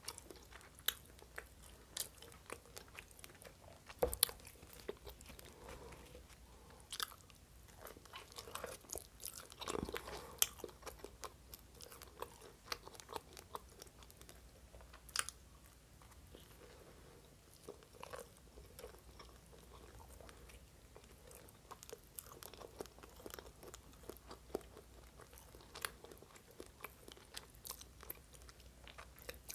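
A person chewing and biting into a slice of pizza: quiet chewing with irregular sharp clicks every second or two.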